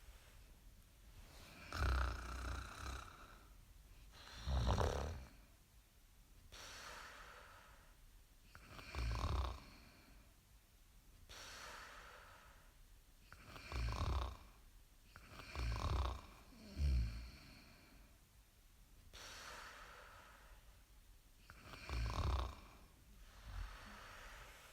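Snoring: about seven loud, rough snores a few seconds apart, two of them close together past the middle, with quieter breathy breaths between them.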